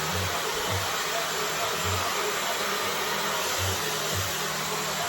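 Dyson hair dryer with a diffuser attachment blowing steadily on a low heat setting, an even rushing whoosh of air. Low thuds come at uneven intervals underneath.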